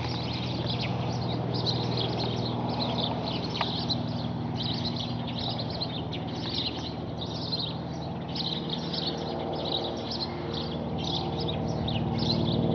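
Many small birds chirping busily and continuously, over a low steady engine drone from a distant propeller aircraft that grows a little louder near the end.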